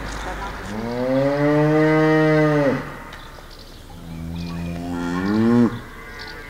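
Cows mooing: two long moos, the first starting about a second in and lasting about two seconds, the second starting around four seconds in and rising in pitch before it cuts off.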